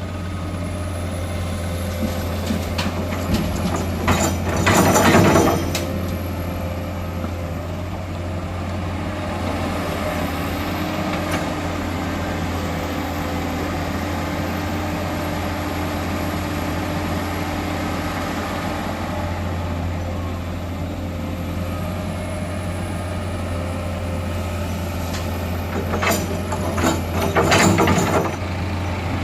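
Heavy diesel earthmoving machinery running steadily at a constant low drone. Two louder stretches of harsh noise, each lasting about two seconds, come about four seconds in and again near the end.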